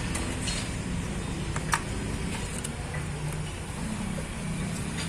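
A steady low engine rumble with a few short sharp clicks, the clearest about one and three-quarter seconds in, as a new ignition coil is fitted.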